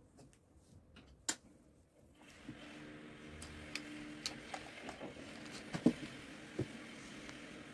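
Quiet room tone with a few sharp, scattered clicks and ticks; about two seconds in, a faint steady hum comes in beneath them.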